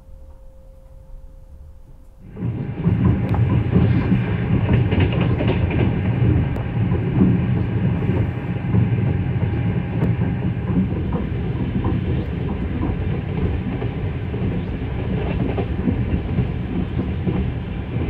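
Passenger train running at speed, heard from inside a compartment car: a steady, loud rumble of wheels on rail with light clicking. It starts suddenly about two seconds in, after a quieter stretch.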